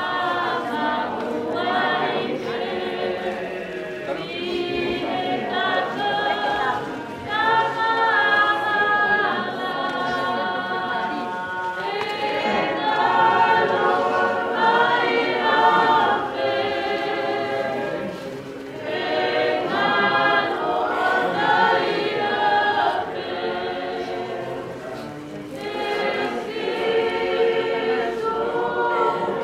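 A choir of mixed voices singing unaccompanied, in long phrases with short dips between them about 7, 18 and 25 seconds in.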